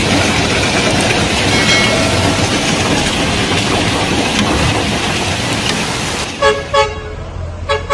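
Heavy hail pelting down, a dense, steady clatter and hiss. Near the end it cuts to a vehicle horn sounding in several short toots.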